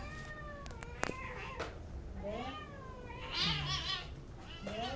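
A cat meowing over and over in drawn-out calls that rise and fall in pitch, the loudest and most wavering one a little past the middle. There is a single sharp click about a second in.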